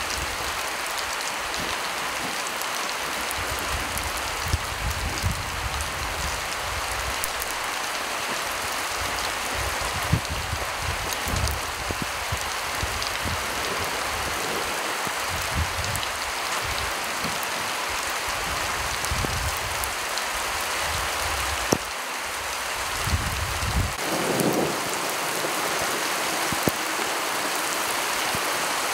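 Heavy rain falling steadily, with scattered sharp taps of drops striking close by. A low rumbling surges and fades repeatedly until about three-quarters of the way through.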